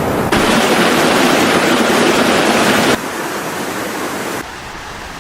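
Rushing water, a loud steady noise that changes level abruptly between spliced clips: loudest from just after the start to about three seconds in, then dropping twice in sudden steps.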